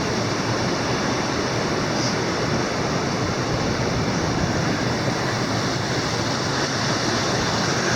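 Steady rushing of stream water at a rock pool.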